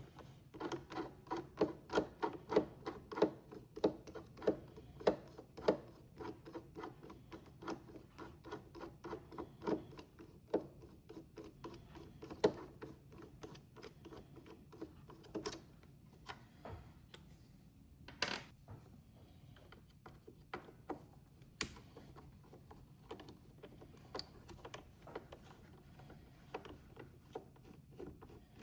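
Phillips screwdriver turning out small screws from the Roomba 960's plastic wheel-module housing: a long run of quick clicks and light scrapes, regular at about two to three a second at first, then sparser with a few louder single clicks.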